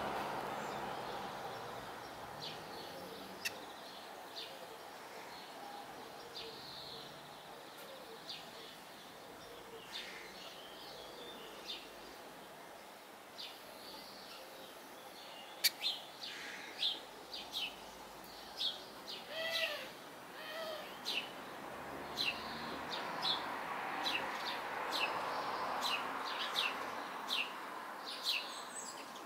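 Blue tit chirping: short, high calls, few at first and coming thick and fast in the second half, over a faint steady rushing background.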